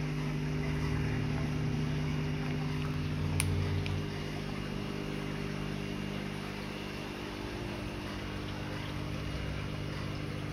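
Steady mechanical hum of a running motor, a little louder in the first four seconds, with a faint click about three and a half seconds in.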